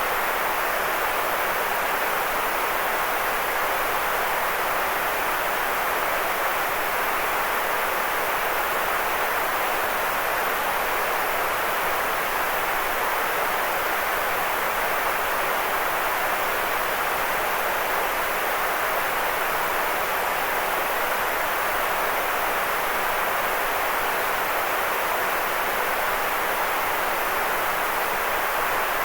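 Steady, unchanging white noise, an even hiss with most of its energy in the middle range and little low rumble.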